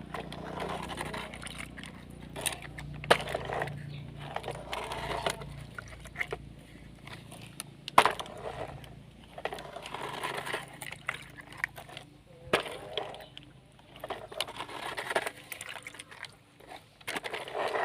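Irregular knocks and clatter over a low steady hum.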